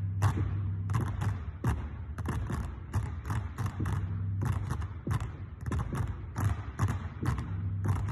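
Several basketballs dribbled in unison on a hardwood court, giving a run of sharp thumps about two a second over a low hum that comes and goes.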